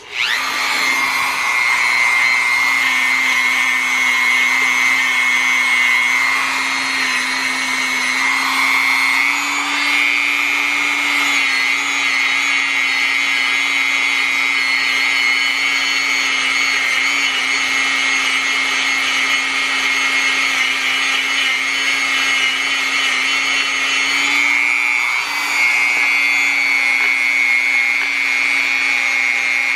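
Small handheld power tool running steadily at high speed with a constant whine, cleaning a surface on the two-stroke engine. Its pitch shifts slightly about ten seconds in and again near 25 seconds.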